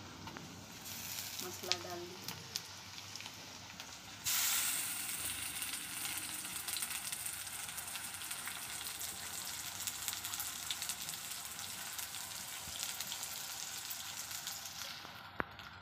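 Chopped onions frying in hot oil in an iron kadhai over a wood fire, a steady sizzle that gets suddenly louder about four seconds in. A couple of light clicks come in the first few seconds.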